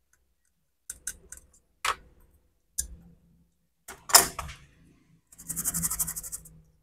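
Small tools and plastic phone parts clicking and tapping on a workbench, the sharpest tap about four seconds in. Then, from about five and a half seconds, a little over a second of rapid, even scrubbing strokes as a small brush scours the brass charging contacts of a phone's wireless-charging part clean of dirt that can disrupt charging.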